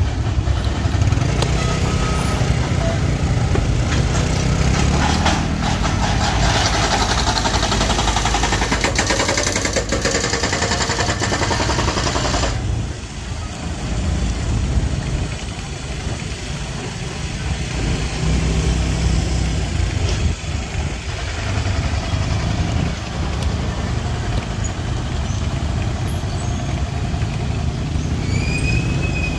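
Road traffic: vehicle engines running and passing close by, louder for several seconds before dropping off suddenly about twelve seconds in.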